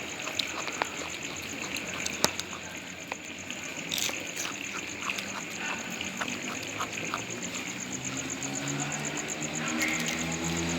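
Frogs croaking in a steady night chorus with a fast high trill and scattered small ticks. A low engine hum comes in near the end and holds steady like an idling motor.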